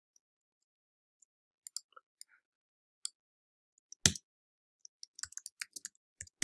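Computer keyboard keystrokes: a few faint, scattered key presses, one louder click about four seconds in, then a quick run of typing near the end.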